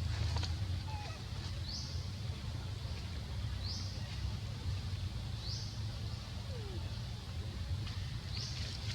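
A bird giving a short, high call about every two seconds, five times in all, over a steady low rumble.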